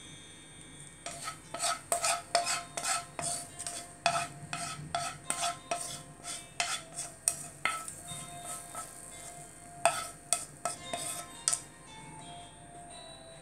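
Wooden chopsticks clattering against a wok and a ceramic plate while fried prawns are lifted out and served: a quick irregular run of taps and scrapes, each with a short ring, easing off near the end.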